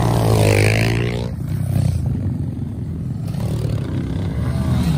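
Small pit bike engine revving as the bike pulls away close by, its pitch rising and falling. After about a second it gives way abruptly to a quieter, more distant engine drone.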